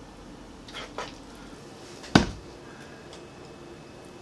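Kitchen plating sounds: a soft knock just under a second in, then one sharp clack a little after two seconds in, from a utensil or dish knocking against dishware.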